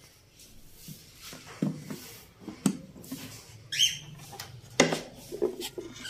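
A series of close knocks, bumps and rubbing as a cage and a wooden nest box are handled, with one short high parrot chirp partway through.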